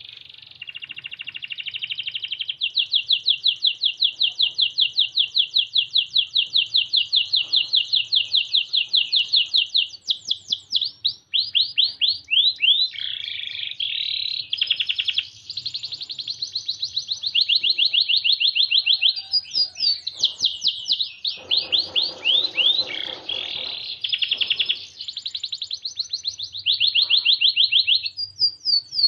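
White Norwich canary singing a long, unbroken song of fast trilled rolls, one run of rapidly repeated high notes after another, with a harsher, buzzy passage a little past the middle.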